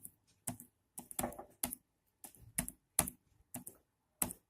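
Typing a password on an HP Pavilion 15 laptop keyboard: a string of irregular key clicks with short pauses between groups of keystrokes.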